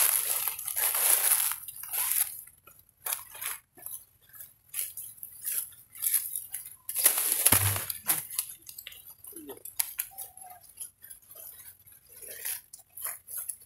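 Dry fallen leaves crackling and rustling in short, irregular bursts as a macaque mother carrying her clinging infant moves about on them. The loudest is a heavier crunch with a dull thump about seven and a half seconds in.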